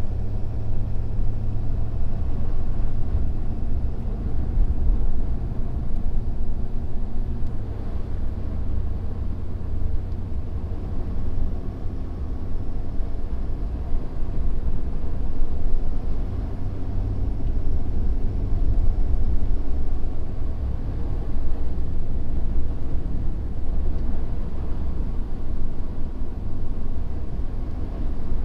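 2017 Ford F-250's Power Stroke diesel engine running steadily as the truck drives, a low rumble that rises and falls slightly, working under load as the truck pushes a plow through heavy wet snow.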